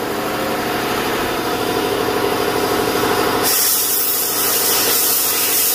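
A machine running steadily with a droning, many-toned hum. About three and a half seconds in, a loud spraying hiss starts and carries on over it.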